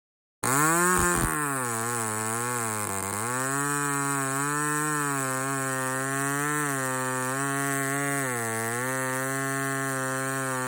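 A 54 cc McCulloch Mac 10-10 two-stroke chainsaw running at high speed. It starts abruptly, its pitch dips sharply twice in the first few seconds and then keeps wavering up and down.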